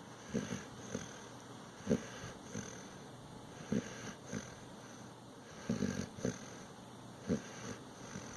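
Snoring in short, irregular snorts and snuffles, roughly one every second or so. The strongest comes about two seconds in, and a close cluster follows a little before six seconds.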